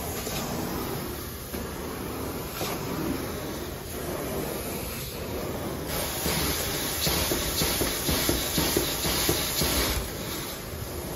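Carpet extraction wand drawn across carpet: a steady hiss of suction through the vacuum hose. It grows louder and rougher from about six seconds in while rinse solution sprays from the wand, then drops back about ten seconds in.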